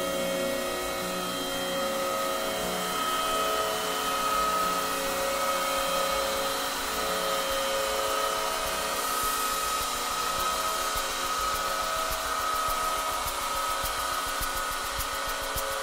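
Ambient synthesizer music playing from a vinyl record: sustained, slowly shifting synth drones over a light hiss, with faint regular ticks coming in over the last few seconds.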